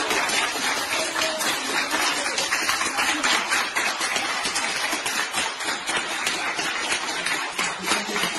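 Applause from a group of hospital staff clapping steadily.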